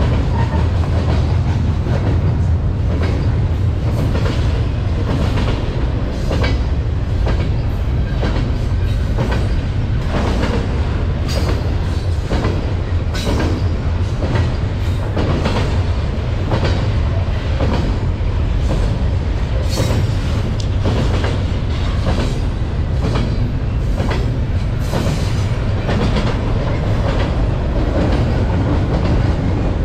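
Double-stack intermodal container train rolling past: a steady low rumble from the cars' wheels and trucks, with repeated clicks and clacks of the wheels on the rails.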